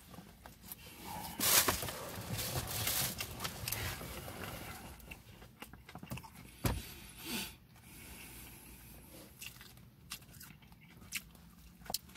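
A person biting and chewing a soft spinach-filled bread roll close to the microphone, with wet mouth smacks and clicks. It is loudest from about a second and a half in until about four seconds in.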